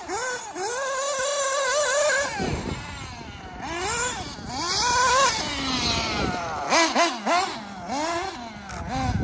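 The nitro engine of a Kyosho MP10 1/8-scale RC buggy running at high revs, its high whine rising and falling repeatedly as the throttle is opened and let off. There is a sharp drop in pitch about two and a half seconds in, and quicker short revs in the later seconds.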